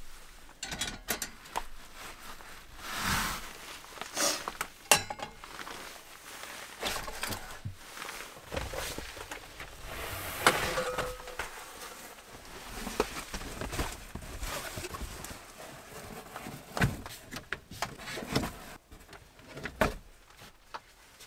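Camping gear being handled and set up on a turf-covered floor: a string of light clicks, knocks and rustles from a folding metal frame and table gear being moved and placed, with a few sharper knocks scattered through.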